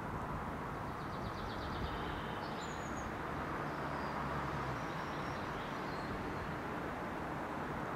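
Outdoor background ambience: a steady low rumble, a low hum between about two and five seconds in, and a few faint, high bird chirps and a short trill.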